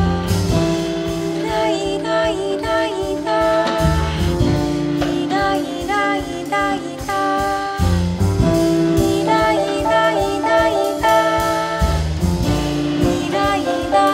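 Woman singing a jazz song, accompanied by her ukulele and a piano.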